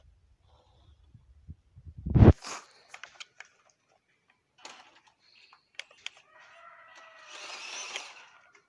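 A small RC rock crawler truck working over rough ground: a loud thump about two seconds in, scattered clicks and knocks from the truck and its wheels, then its small electric motor whining steadily near the end.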